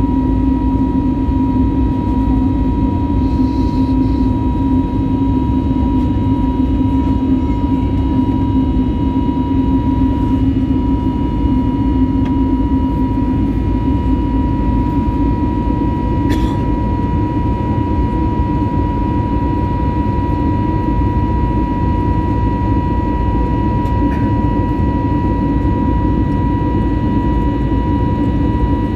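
Airbus A320neo cabin noise during the climb after takeoff, heard from a window seat beside the engine: a steady deep rush of engine and airflow, with a steady high whine on top. A single brief tick about halfway through.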